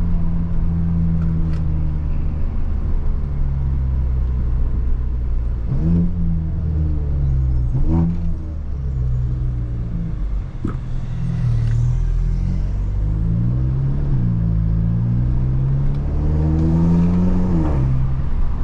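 Volkswagen Jetta TSI's turbocharged four-cylinder engine, tuned to Stage 2 with a downpipe, pulling under acceleration. The note holds steady at first, then climbs in pitch several times, each climb ending in a sudden drop, with the longest climb near the end.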